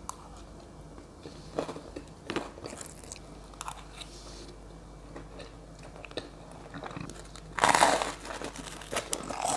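Close-up eating sounds: a person biting and chewing crunchy food, with scattered short crisp crunches and a louder, longer crunch near the end.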